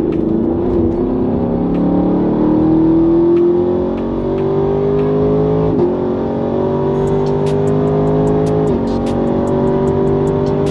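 Ford Mustang with a 10-speed automatic accelerating hard down a drag strip. The engine note climbs, drops sharply at an upshift about six seconds in, climbs again, and drops at a second upshift near nine seconds.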